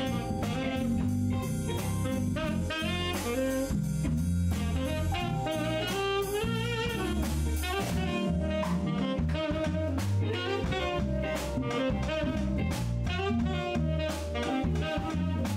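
Live jazz band playing: a saxophone melody over drum kit, electric bass and keyboard, with a steady beat.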